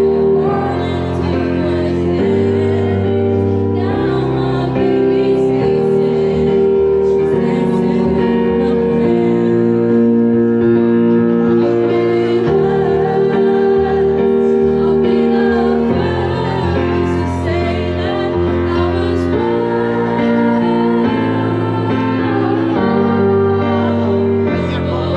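A song playing: held chords changing every second or two, with some singing.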